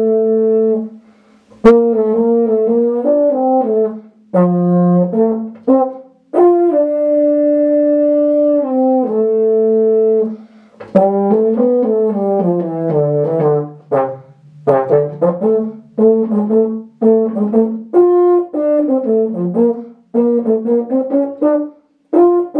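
Solo euphonium playing a lively tune: a few long held notes in the first half, then a run falling into low notes, then a string of short, detached notes with brief breaths between phrases.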